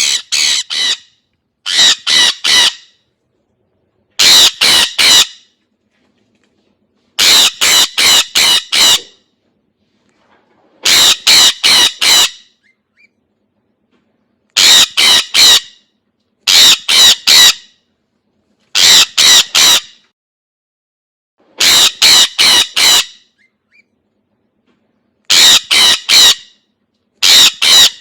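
Sun conure screeching: loud, harsh calls in quick runs of three or four, the runs repeating every two to three seconds with silence between.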